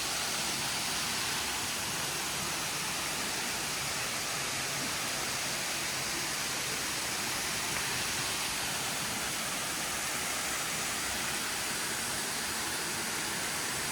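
Waterfall water falling and rushing: a steady, even hiss that does not change.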